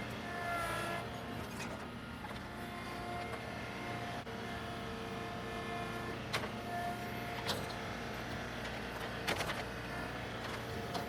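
Tractor engine running steadily under load while working a large tree stump out, with a few sharp knocks in the second half.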